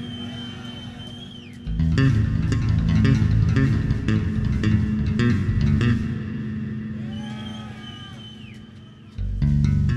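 Electric bass guitar playing a solo live: heavy low riffs that break off twice, leaving a held high note that bends downward as it fades. The low riffing comes back in abruptly about two seconds in and again near the end.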